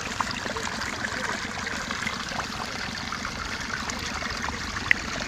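Water running and trickling steadily through a gap cut in a mud bank, with small scattered splashes and one sharp tick near the end.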